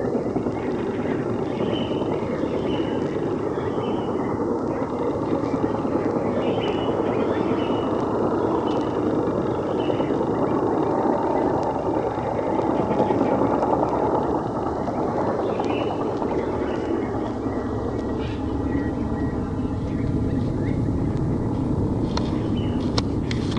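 Helicopter droning steadily overhead, a continuous rotor-and-engine noise, with small bird chirps above it. A few sharp clicks come near the end.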